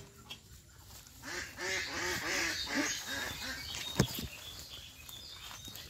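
A bird, likely a duck or goose, gives a quick series of about eight short calls over two seconds, then a single sharp knock comes about four seconds in.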